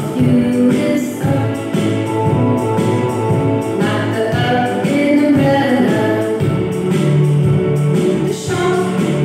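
A children's phonics song, singing over backing music, played from an animated lesson on the letter u through a classroom smart board's speakers.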